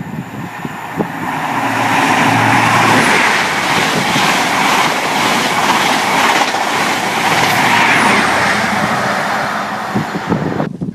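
A train passing the platform. Its noise builds over the first two seconds into a loud, steady rush with wheels clicking over rail joints, then eases slightly and cuts off suddenly near the end.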